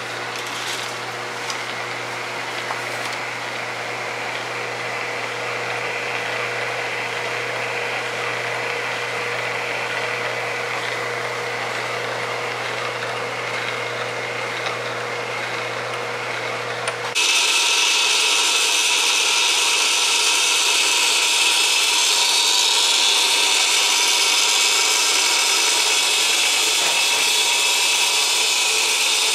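Steady mechanical hum and whir with a faint steady whine. About 17 seconds in it cuts abruptly to a louder, steady rushing hiss with several high whines.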